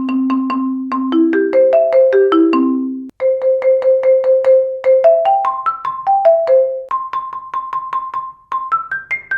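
Marimba played with Marimba One Wave Wrap yarn mallets: quick repeated notes and stepwise runs up and down the bars. The notes break off briefly about three seconds in, then resume.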